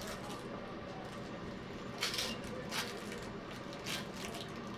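Yorkshire Terrier puppies scuffling and tugging at plush toys on a fabric rug: a few short rustles and scrapes, the clearest about two seconds in, over a steady low hum.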